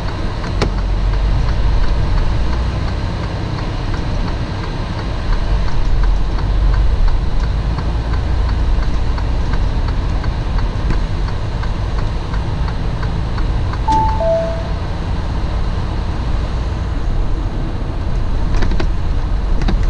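Steady low engine and road rumble heard inside a semi-truck's cab while driving. About fourteen seconds in, a short two-note electronic chime sounds, the second note lower.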